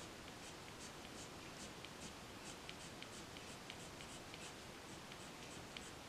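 Prismacolor coloured pencil scratching on paper in short, quick shading strokes, about three a second. The sound is faint and even.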